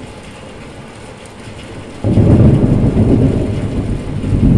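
Thunder from a nearby lightning strike: after a faint steady hiss, a sudden loud, deep rumble breaks in about two seconds in and keeps rolling.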